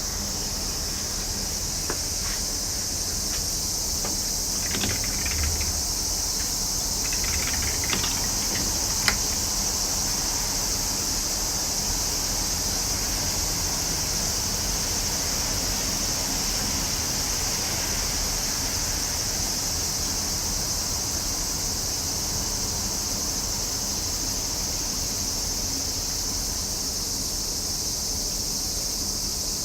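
A chorus of summer cicadas droning in a steady, unbroken high-pitched hum. A few brief, sharper sounds break in during the first ten seconds.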